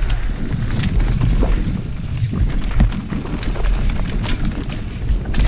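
Downhill mountain bike riding over a rough dirt track: wind buffets the helmet-camera microphone in a heavy, steady rumble, with a scatter of knocks and rattles from the bike taking the bumps.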